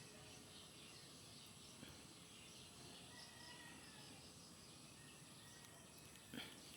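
Near silence: faint outdoor background with faint bird chirps, and a small click near the end.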